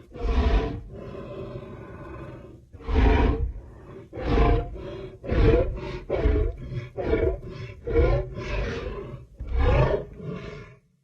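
Creature sound-effect vocalizations of a Daeodon, a giant prehistoric boar-like entelodont: a string of about ten deep roars and grunts, with a quick run of shorter ones in the middle, cutting off abruptly near the end.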